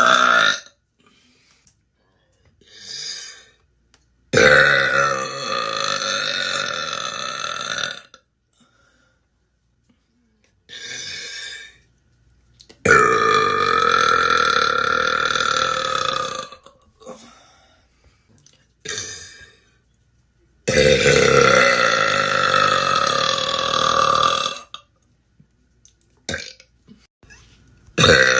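A woman burping: three long, loud burps, each lasting about four seconds and holding a steady pitch, with short, quieter sounds in the gaps between them.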